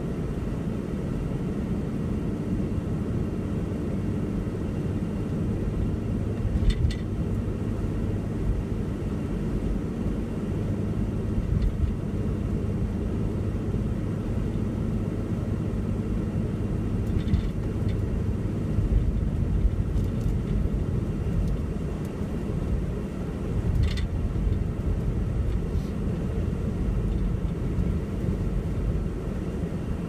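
Steady low rumble of a car driving on a snow-covered highway, heard from inside the cabin, with a few brief clicks.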